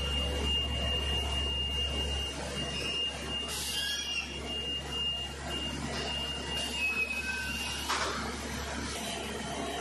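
Rock wool production line machinery running: a steady low hum with a high, thin tone that breaks off now and then. There is a short hiss about three and a half seconds in and another about eight seconds in.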